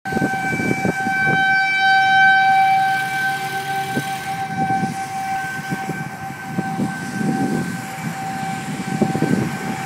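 Outdoor tornado warning siren sounding a steady tone, over the hiss of cars passing on a wet road.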